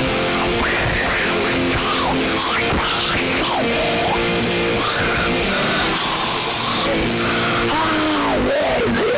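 Loud heavy rock music played live, with guitar and pitch glides over a steady, dense backing that never lets up.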